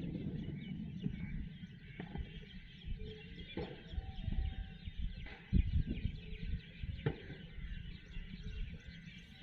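Thunder rumbling low and unevenly after a clap, fading over the first second and then rolling on with a few dull thumps in it.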